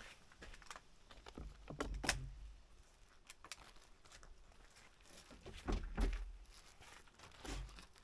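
Handling noise: scattered clicks and taps, with low thumps about two, six and seven and a half seconds in.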